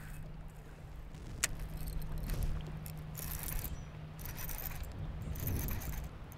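Fishing gear being worked: small mechanical clicks, scrapes and rattles, with one sharp click about a second and a half in, over a steady low hum.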